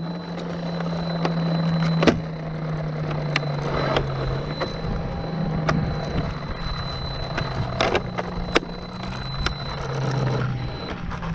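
Sharp plastic clicks and knocks from the body and parts of a Traxxas X-Maxx RC monster truck being handled. Under them runs a steady low hum that drifts slightly in pitch.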